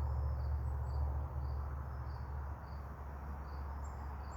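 Honeybees buzzing around an open hive, under a steady low rumble, with crickets chirping in a regular high pulse about twice a second.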